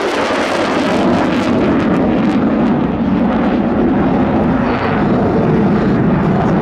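F-35A Lightning II's single Pratt & Whitney F135 turbofan roaring loud as the jet passes just below the speed of sound and pulls up into a steep climb. The roar has a ragged, crackling edge, strongest in the first few seconds.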